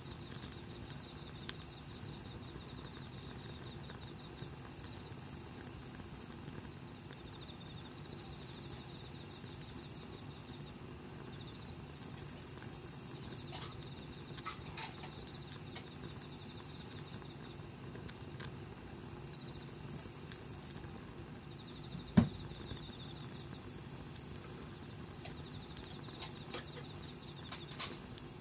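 Wood bonfire burning with a few faint crackles and one sharp pop about 22 seconds in.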